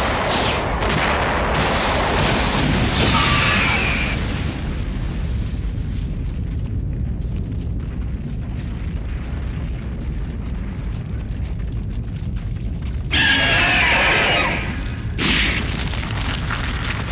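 Film sound effects of a giant-monster battle: a string of heavy explosion booms, fading into a low rumble. About thirteen seconds in, a loud kaiju roar with a wavering high cry breaks in, followed by a shorter burst.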